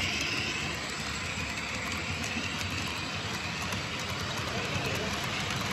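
Model train running on a layout: a steady rumble of wheels and motor with faint light clicks.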